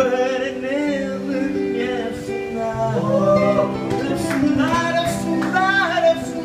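Live music: a man singing into a microphone over held instrumental chords.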